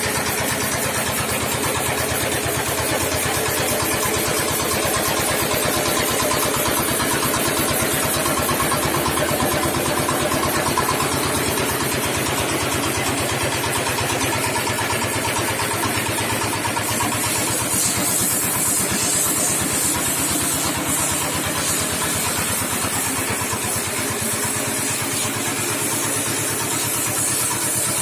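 Small engine of a concrete mixer running steadily with an even firing rhythm; a higher hiss joins a little past the middle.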